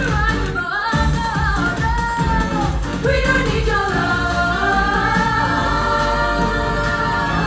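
Live pop-musical number: several women singing in harmony into microphones over a live band with a keyboard and a steady beat, recorded from the audience.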